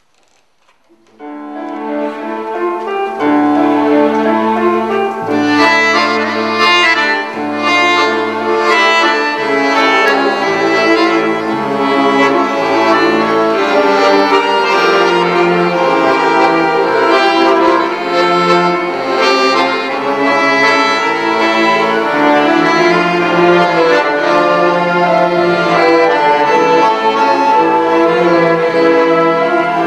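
Accordion and orchestra playing together, with bowed strings under the accordion's melody. The music begins about a second in.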